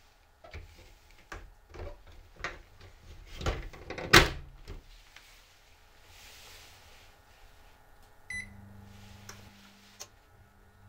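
A run of clicks and knocks, loudest about four seconds in. About eight seconds in comes a short electronic beep, then a low steady hum that breaks off briefly and starts again.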